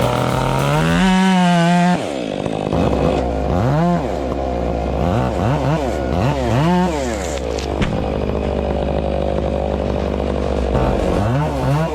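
Chainsaw engine revving up and down repeatedly, its pitch climbing with each throttle squeeze and dropping back, in several quick bursts through the middle and again near the end.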